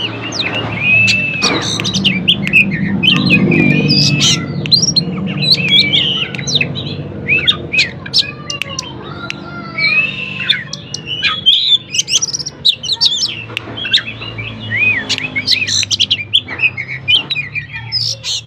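Oriental magpie-robin singing continuously: a rich, varied song of loud whistled notes that arch up and down, quick trills and sharp chips, with hardly a pause.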